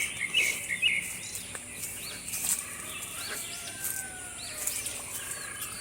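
Outdoor garden ambience: small birds chirping in short, scattered calls over a steady high-pitched background whine.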